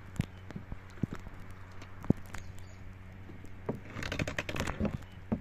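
Small wooden boat being poled through shallow water: scattered sharp knocks of the pole and feet against the wooden hull, the loudest about two seconds in, then a burst of splashing and dripping water about four seconds in as the pole is worked.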